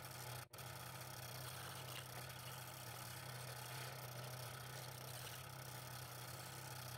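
Scroll saw running with a steady hum, its fine blade cutting along a pattern line in thin wood. The sound drops out for an instant about half a second in.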